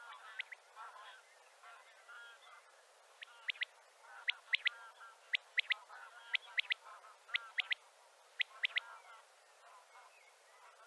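Male common quail singing its three-note 'wet-my-lips' call, repeated about once a second six times from about three seconds in. Softer chattering calls sound underneath throughout.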